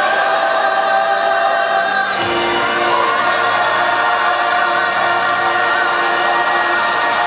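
A large mixed group of voices singing together in chorus, holding long notes, with the chord shifting about two seconds in.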